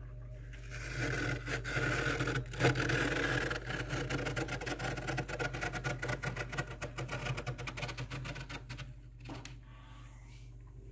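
Fingers scraping and clawing thick frost off the inside walls of a freezer: a rapid, continuous run of scratching strokes that starts just under a second in and stops a couple of seconds before the end, over a steady low hum.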